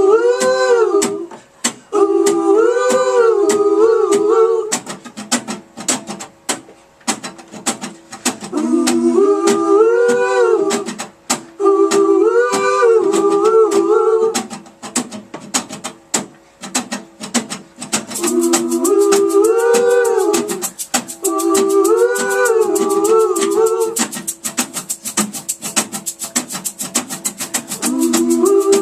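Live band music with no sung words: a pitched, wordless melody phrase rises and falls, repeated in pairs about every nine seconds, over a fast, steady shaker rhythm. The shaker grows denser and brighter about 18 seconds in.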